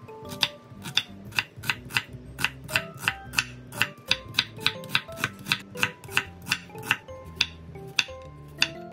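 Chef's knife slicing an onion, then a Korean zucchini, on a wooden cutting board, the blade knocking the board in an even rhythm of about three strokes a second.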